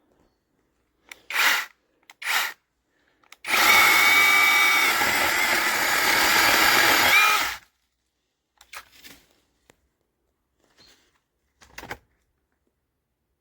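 Battery-powered 8-inch mini chainsaw's brushless motor, triggered in two short bursts and then run for about four seconds with a steady whine before stopping abruptly.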